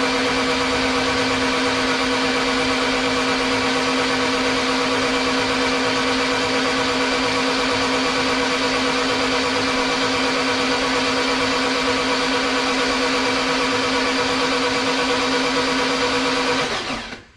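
Starter motor cranking a Honda H2B race engine with its spark plugs out, so it turns over fast and evenly, a steady whine with no compression beats. It stops near the end.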